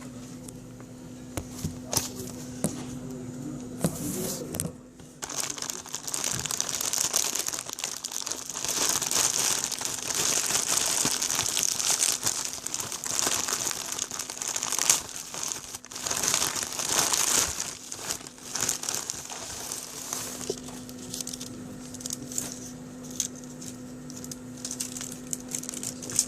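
Plastic wrapping on a new phone box crinkling and tearing as it is pulled off, with scattered sharp clicks and taps. It is loudest from about five seconds in until around twenty seconds, then fades to lighter handling.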